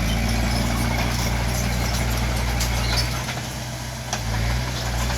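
Bulldozer's diesel engine running steadily, its low drone easing off for about a second past the middle before picking up again.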